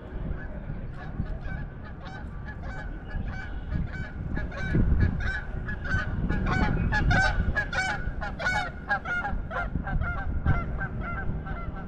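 A flock of birds calling over and over, many short calls overlapping, busiest from about four to nine seconds in.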